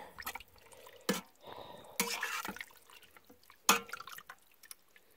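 Slotted metal spoon stirring pieces of tripe in water in a stainless-steel pot: scattered small splashes and drips, with a few sharp clicks.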